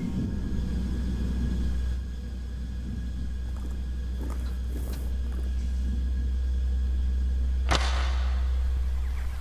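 Deep, steady rumbling drone of a film soundtrack, with a few faint ticks in the middle and a single sharp hit near the end.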